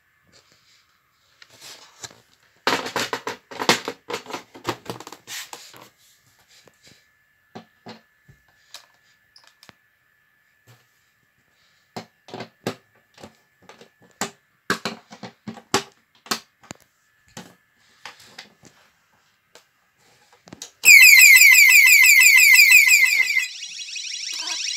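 Intruder-alarm bell box siren sounding from about 21 seconds in, loud, made of fast-repeating rising sweeps. It drops in level and changes tone shortly before the end. Before it there are scattered handling clicks and knocks and a faint steady high beep-tone.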